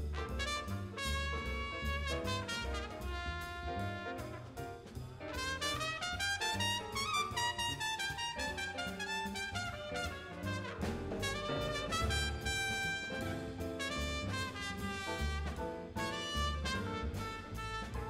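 Jazz big band playing, with a trumpet soloing over the band and a plucked double bass underneath. About halfway through, the trumpet line climbs and comes back down.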